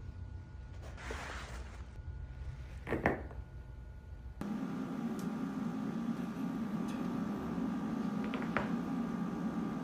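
A single sharp pop about three seconds in, a joint cavitating during a manual back adjustment, over soft rustling of hands and clothing. Then a steady low hum with a couple of faint clicks near the end.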